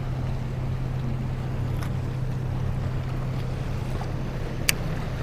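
Wind noise on the microphone over waves washing against a pier, with a steady low hum underneath and one sharp click about four and a half seconds in.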